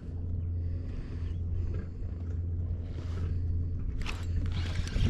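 Wind buffeting an action-camera microphone on open water: a steady low rumble, with a brief rushing hiss about four seconds in.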